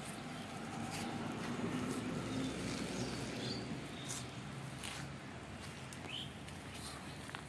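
Outdoor ambience with a few short bird chirps and scattered light taps over a low, steady background rumble.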